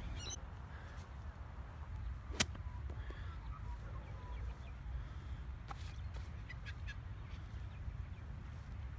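A golf club striking a ball: one sharp crack about two and a half seconds in. A few faint clicks follow later, over a steady low rumble of wind on the microphone.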